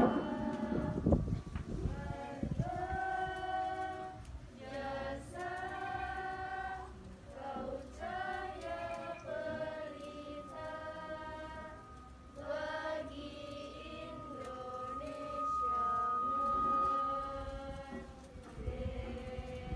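A group of voices singing together in chorus, in phrases of long held notes. A thin steady high tone sounds over the singing for several seconds in the second half.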